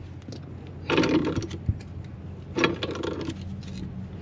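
Pipe wrench working a threaded steel gas fitting, two scraping, grinding strokes of metal on metal with a sharp click between them, over a steady motor hum.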